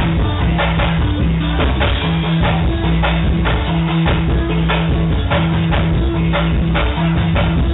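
Live band music played loud over a PA: a drum kit keeping a steady beat of about two strokes a second under a repeating bass line, with guitar.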